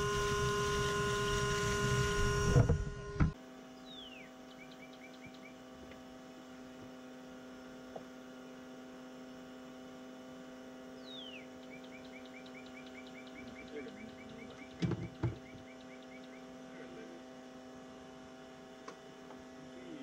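Bee vacuum running loud and steady with its nozzle on the honeycomb, cutting off abruptly about three seconds in. A fainter steady hum follows, with two short thumps around the middle.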